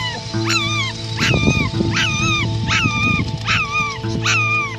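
A Schipperke puppy crying in a run of short, high-pitched whines, each sharply rising then falling away, about one every 0.7 seconds. Background music with steady held notes plays underneath.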